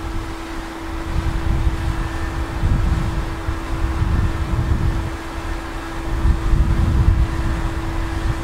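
Wind buffeting the microphone in gusts, over a steady drone from an Airbus A319-112's CFM56 jet engines on final approach.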